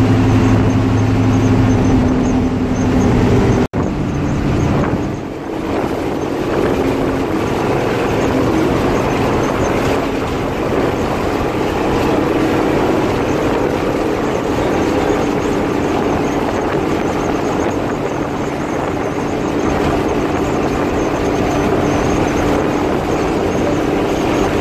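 Diesel engine of a Hino 1J bus running hard at highway speed, with road and wind noise. About four seconds in there is a brief break, and the engine note then settles slightly lower and carries on steadily.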